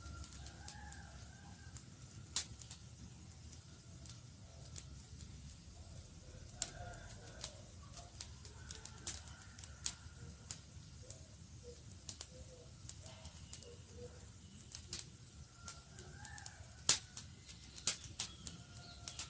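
Campfire crackling: irregular sharp pops and snaps over a low steady rumble, the loudest pop coming near the end.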